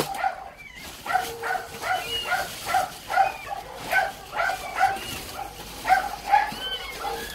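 Newborn kittens mewing from inside a plastic garbage bag: a steady run of short, high cries, about two or three a second.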